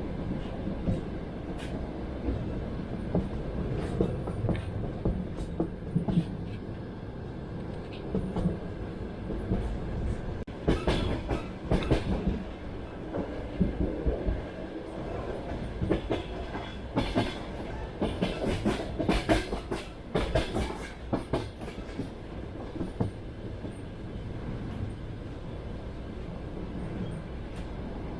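Passenger train running on the Polar Urals line: a steady rumble with the wheels clicking over rail joints. The clatter grows louder and sharper for a stretch about ten seconds in, and again through the middle of the second half.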